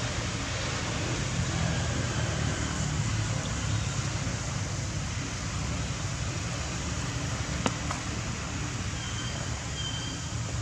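Steady outdoor background rumble and hiss, with one sharp click about three quarters of the way in.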